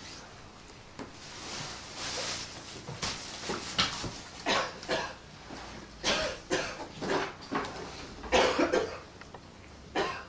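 A person coughing hard in short, irregular bursts, several times over, the loudest about halfway through.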